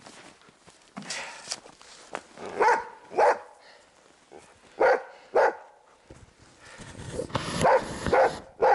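Hunting dog barking in pairs of short barks, a pair every couple of seconds, holding a sable treed in a tree.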